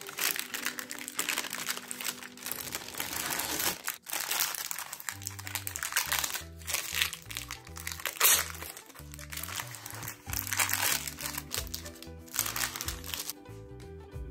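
Baking paper crinkling and rustling as it is peeled off a firm slab of marshmallow nougat, stopping near the end, with background music underneath.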